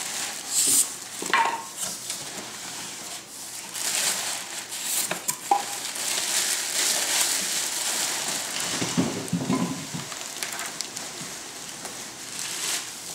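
Clear plastic wrapping crinkling and rustling as it is pulled and handled, with cardboard box flaps rubbing against it. There are many small crackles throughout and a heavier, lower rustle about nine seconds in.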